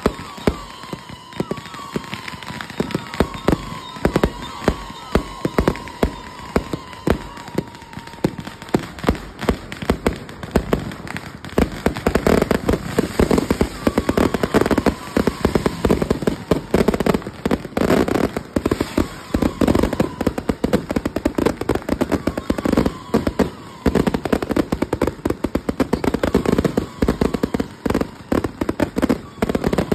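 Ground-launched fireworks going off in rapid succession: a continuous string of sharp bangs and crackles. A thin tone falls slowly in pitch over the first several seconds, and about twelve seconds in the barrage grows denser and louder.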